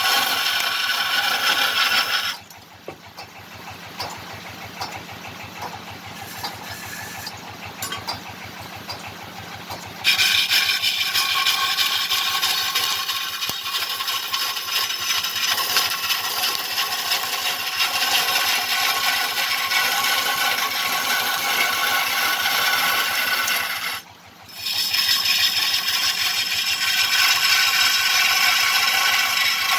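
Wood lathe turning a kendang drum body of fruit-tree wood, a lathe chisel scraping and cutting into the spinning wood. The cutting drops away about two seconds in, leaving a quieter stretch for several seconds, then starts again, with a brief break near the end.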